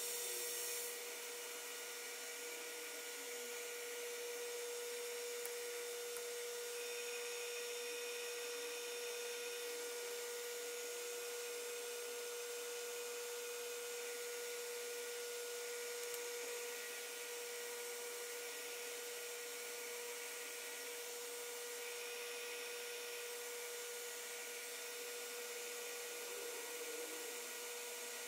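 Lathe running at a steady speed, giving a steady hum with a clear tone, while a parting tool cuts a shallow groove in the spinning part.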